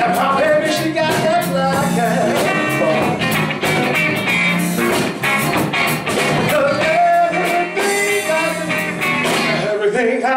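A live electric blues band playing: a man singing over a Les Paul-style electric guitar, with drum hits throughout.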